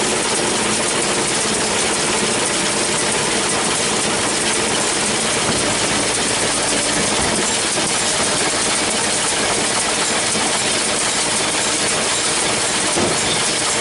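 John Deere 6400 diesel tractor running steadily while the New Holland 648 round baler works behind it, with a dense, even mechanical clatter of the baler's moving parts over the engine.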